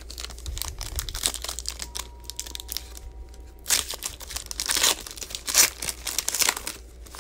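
A foil trading-card pack of Panini Playoff football cards crinkling and tearing as it is opened by hand. It goes in a run of rustling bursts, with several louder crinkles from about four seconds in.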